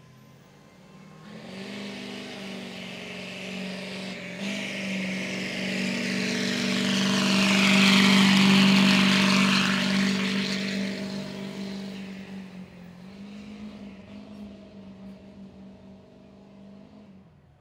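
Pickup truck engine held at full throttle as the truck drags the pulling sled down the track, at a steady pitch. It grows louder to a peak about eight seconds in, then fades away and cuts off near the end.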